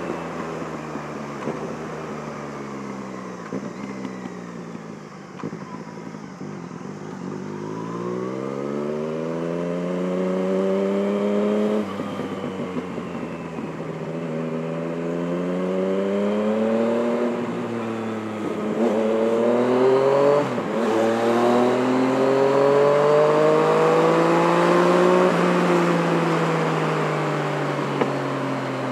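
2016 Yamaha MT-09's 847 cc inline three-cylinder engine through an M4 carbon-fibre decat exhaust, heard from inside the rider's helmet. The revs rise and fall repeatedly under acceleration and gear changes, with the engine note dropping back near the end.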